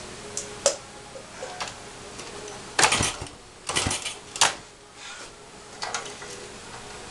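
1975 Honda CB125S single-cylinder motorcycle being kicked over: about three heavy, rough strokes near the middle, with light metallic clicks before and after, and the engine does not keep running.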